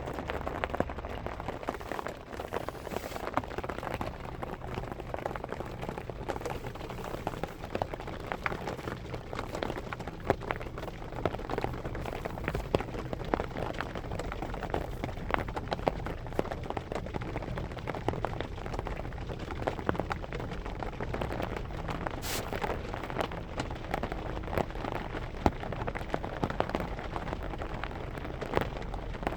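Rain falling on a car roof: a dense, even patter of drops, with a steady low hum underneath.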